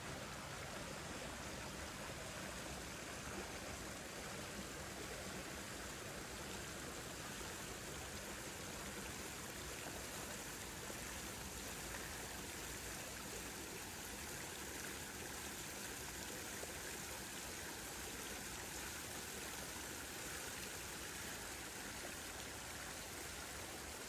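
Steady rushing of flowing water, an even splashing stream sound that does not change.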